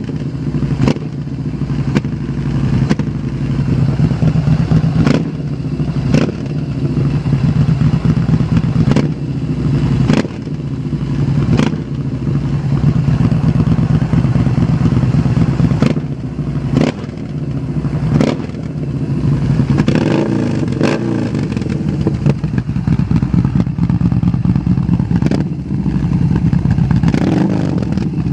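Yamaha Bolt 950's air-cooled V-twin running through a custom slip-on exhaust with a deep, heavy bass note, blipped on the throttle again and again. Sharp cracks come every second or two, and the revs rise and fall plainly about two-thirds of the way in and again near the end.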